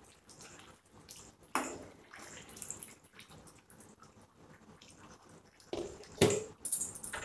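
A spatula stirring soupy green-pea curry in a nonstick pan, with wet sloshing and dripping. There are sharp knocks of the spatula against the pan about a second and a half in and twice near the end, the last ones the loudest.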